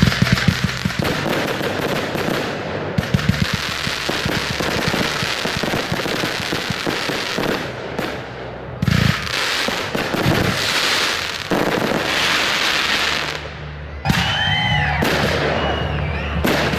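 Fireworks display: a dense, continuous crackling from crackle shells, with a cluster of sharp bangs right at the start and another about halfway through, and a few short whistling tones near the end.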